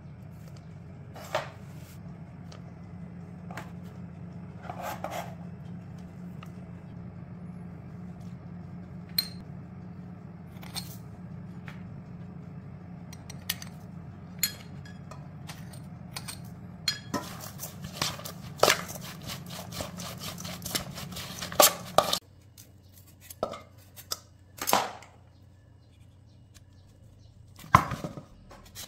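Kitchen handling sounds around a stainless-steel bowl: scattered knocks and clinks of a board, spoon and ingredients against the bowl, coming thicker for a few seconds about two-thirds of the way in. A steady low hum underneath cuts off suddenly a little over twenty seconds in.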